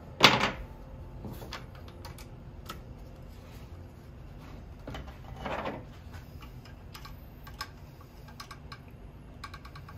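Hands handling a metal phone-mount bar with a hex key: small clicks and taps. There is a sharp knock just after the start, a short scrape about halfway through, and quick runs of tiny clicks near the end.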